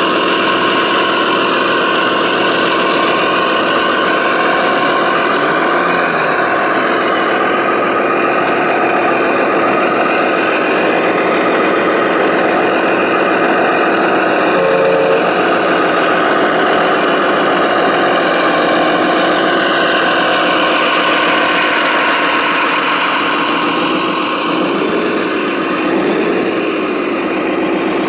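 Radio-controlled Liebherr R970 SME model excavator running with a steady engine-like drone. The pitch sweeps briefly about six seconds in and again near the end as the machine works.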